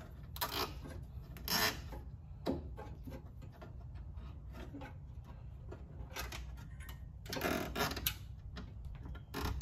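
Plastic zip ties being fed through and ratcheted, a run of small clicks, with a few louder scrapes and rustles from hands working at the bumper and headlight, over a steady low rumble.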